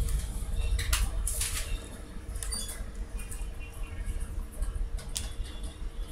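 A few scattered light clicks from a computer keyboard and mouse, over a steady low electrical hum and microphone rumble.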